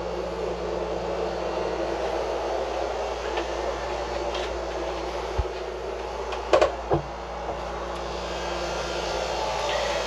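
Steady rushing of a Mabru SC05DC 12-volt marine cabin air conditioner running, air blowing from its vent, with a low hum beneath. A knock and a couple of clicks from the head's door handle come between five and seven seconds in.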